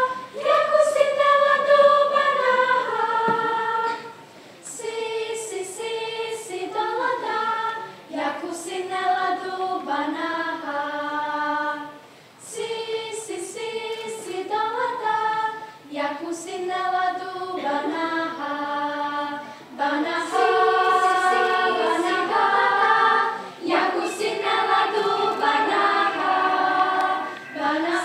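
Children's school choir singing unaccompanied in several parts, in phrases of a few seconds with short breaks between them. A few short sharp accents sound between phrases.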